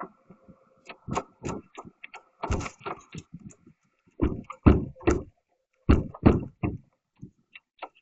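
A series of irregular knocks and thumps, loudest and most frequent in the second half.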